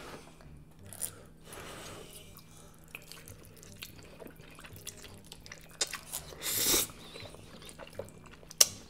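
Noodles being slurped and chewed close to the microphone, with small wet mouth clicks throughout. There is a short slurp a little under two seconds in and a louder one of about half a second around six and a half seconds in. A sharp click comes near the end.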